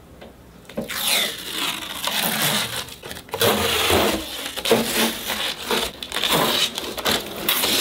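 Clear protective plastic film being peeled off a PC case's side panel, crinkling and crackling unevenly. It starts about a second in.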